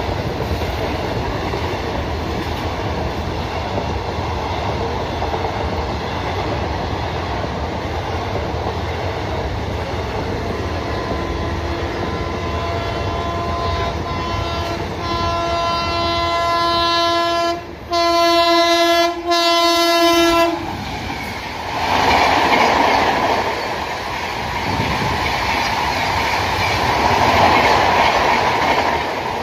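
Express train coaches rumbling and clattering steadily along the track. Then an electric locomotive's horn sounds, faint at first and growing louder in three blasts that stop about two-thirds of the way in, as the approaching Rajdhani Express's WAP7 nears. A loud rush of wheels and air follows as its LHB coaches pass at about 130 km/h.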